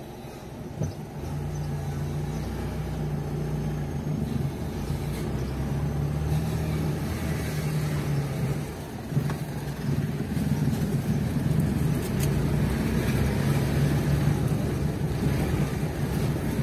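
Car engine running steadily while driving, with road noise. There is a single knock about a second in, and the engine note falls away briefly near the middle before picking up again.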